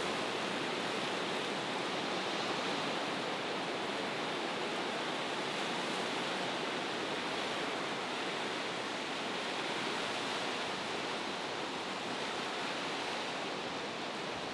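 Sea surf washing against rocky shoreline: a steady, even rush of water noise without distinct separate wave crashes.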